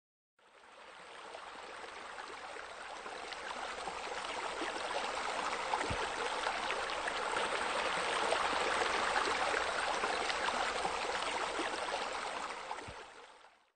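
Running water, a steady rushing and trickling like a stream, fading in at the start, growing louder through the middle and fading out near the end.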